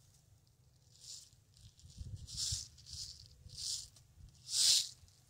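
A few short rustling, brushing sounds spaced about a second apart, the last the loudest, with soft low thumps about two seconds in.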